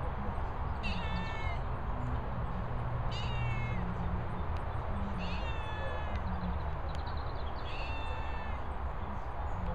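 Black-and-white domestic cat meowing repeatedly, four separate falling meows about two seconds apart.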